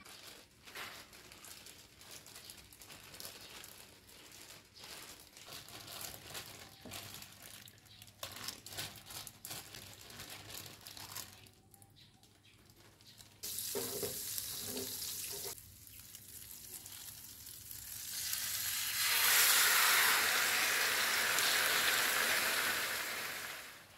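Kitchen sounds: scattered knocks and clatter of utensils, then a loud, even sizzle of food frying in a pan that swells up about three-quarters of the way through and stops shortly before the end.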